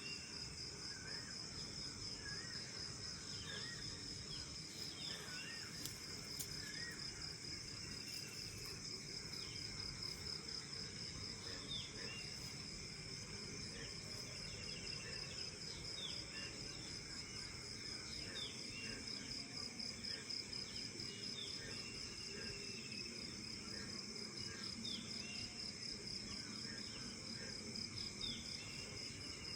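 A steady, high, pulsing insect trill, cricket-like, with many short bird chirps and whistles scattered over it.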